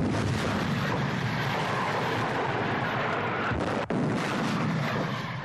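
Towed anti-tank guns firing: a sudden loud blast right at the start, then several seconds of continuous heavy gunfire noise that hardly dies away, broken briefly about four seconds in.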